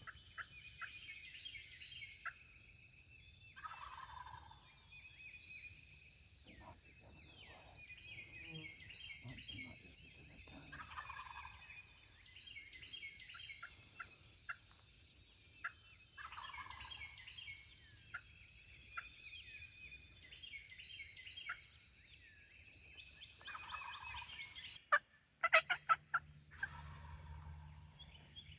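Wild turkey gobbler gobbling four times, each a falling rattle, with songbirds chirping throughout. A few sharp clicks come near the end.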